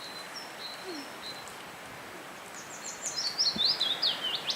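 A small songbird singing: a few thin high whistles, then about three seconds in a fast, loud run of short notes stepping down in pitch and ending in a quick flourish, over a steady outdoor hiss.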